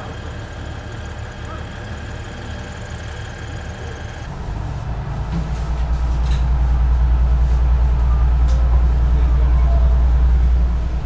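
KiHa 110 diesel railcar idling with a steady drone. About four seconds in, its diesel engine opens up into a loud, low, steady drone as the railcar pulls away under power, and it eases off right at the end.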